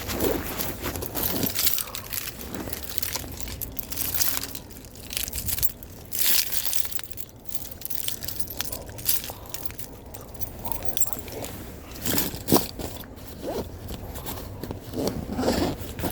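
Irregular handling noises: scattered knocks and clicks with scraping and crinkling, as gear is moved about.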